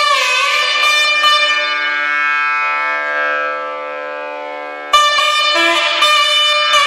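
Nadhaswaram playing slow, gliding melodic phrases in raga Behag over the steady drone of an electronic sruti box. A long held note fades away, then a louder new phrase starts suddenly about five seconds in.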